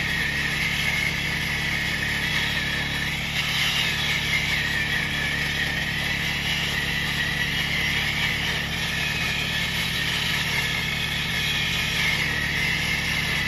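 Rail weld grinder's cup wheel grinding down a thermite weld on the rail head. A steady, high grinding hiss runs over an even low engine hum.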